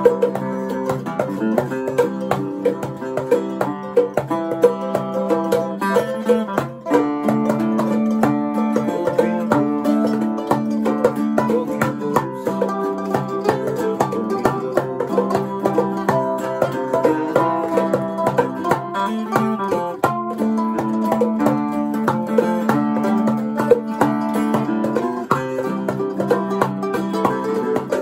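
A live string jam: a mandolin and an archtop guitar picking together, with a handpan struck by hand, playing continuously.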